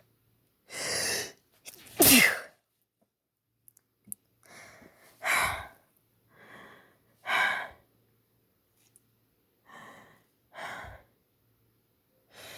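A woman sneezing wetly four times in a row. Each sneeze comes about a second after a sharp in-breath. The first sneeze, about two seconds in, is the loudest, and the last ones are softer.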